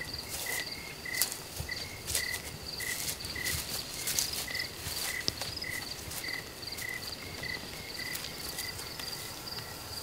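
Crickets chirping steadily, two rhythms of repeated chirps at a lower and a higher pitch, with short dry rustles and crackles scattered in between.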